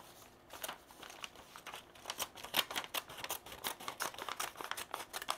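3D-printed PLA plastic scissors snipping through a sheet of printer paper: an irregular run of small plastic clicks with paper crinkling, starting about half a second in.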